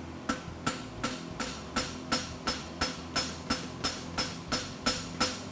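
Hand hammer striking a red-hot steel horseshoe on an anvil face in steady blows, about three a second, each with a short metallic ring. The farrier is shaping the heated shoe.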